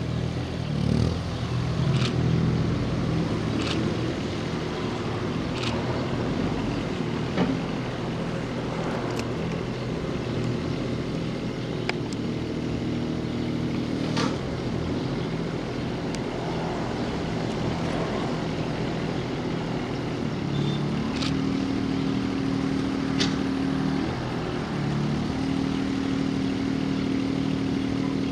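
Cat 301.4 mini excavator's diesel engine running steadily, its tone shifting a few times as it works, with short sharp knocks every couple of seconds.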